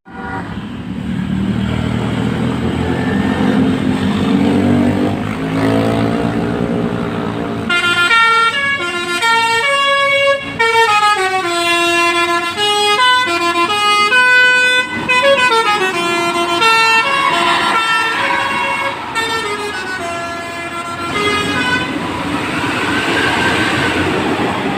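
A tour bus's Basuri multi-tone musical air horn plays a quick 'telolet' tune of short stepped notes for about nine seconds. Before and after it there is only bus engine and traffic noise.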